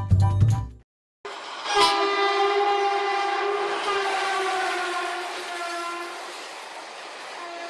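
A train horn sounds one long blast over the rush of a passing train. It starts sharply, holds, and slowly fades.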